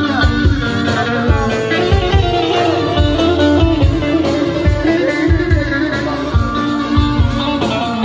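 Live Turkish arabesk band playing an instrumental passage: a violin section and cello over a plucked long-necked saz, with a steady drum beat.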